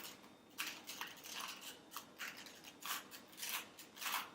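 A plastic 2x2 Rubik's cube being turned by hand, its layers clicking in a quick run of about three turns a second as the R U R' U R U2 R' algorithm is performed again.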